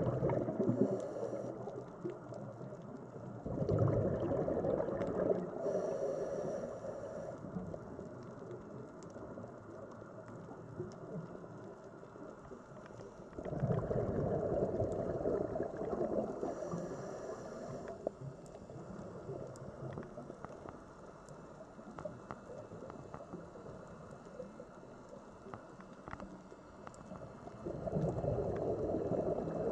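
Scuba diver's breathing through a regulator underwater: surges of exhaled bubbles rumbling and gurgling about every ten to fifteen seconds, with quieter water noise between.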